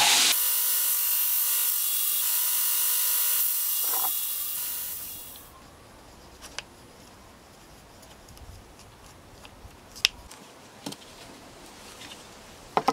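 A bench power tool runs as a stabilized oak handle scale is worked against it, then winds down and stops about five seconds in. Afterwards there are only a few faint clicks and taps as the knife parts are handled.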